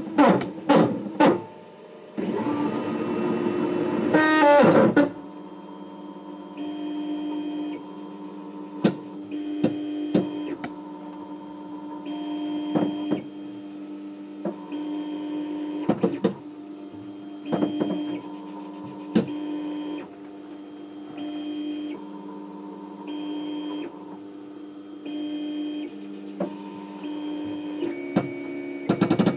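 Stepper motors of a home-built 3D printer moving the print head during a test print. A loud rising whine runs for a few seconds near the start, then a steady whine follows, with higher tones switching on and off about once a second as the axes start and stop, and a few clicks.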